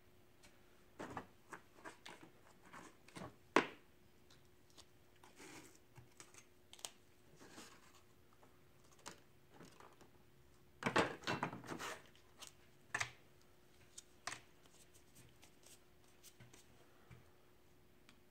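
Scattered light clicks and taps of small objects being handled, with a busier cluster of them about eleven seconds in, over a faint steady hum.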